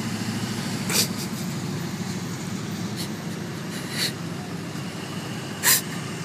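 Trucks passing with a steady low engine drone, broken by three short, sharp noises about a second in, at about four seconds, and, loudest, near the end.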